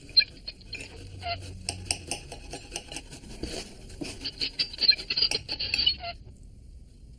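Knife and fork clicking and scraping on a plate while cutting up fruit: a quick run of clicks that gets busier towards the end and stops about six seconds in.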